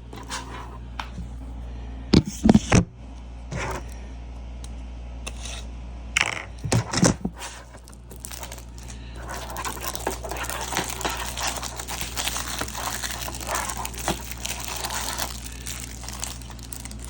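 Plastic wrapping being torn and peeled off a DVD case. A few sharp knocks and handling clatter come in the first half, then steady crinkling from about nine seconds in.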